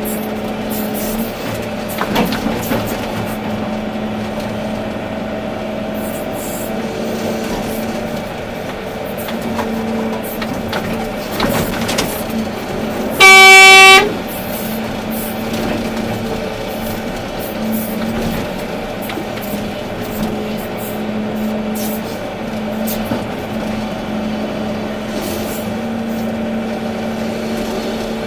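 Volvo EC380D excavator's diesel engine running steadily with occasional knocks of work. About halfway through, a single horn blast of under a second, the loudest sound.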